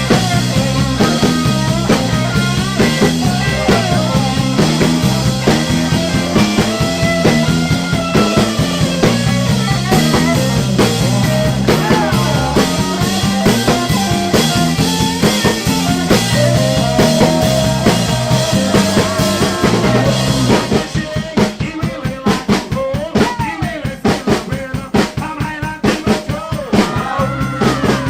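Live rock and roll band of drum kit, electric bass and guitar playing an instrumental stretch of a late-1950s rock and roll song, with a lead line bending over the beat. About 21 s in the bass drops out, leaving mostly drums, and the full band comes back in near the end.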